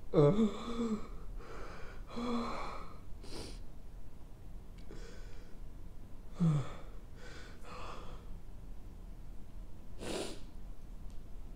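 A man crying: short, broken sobs and gasping breaths, with a sharp breath near the end.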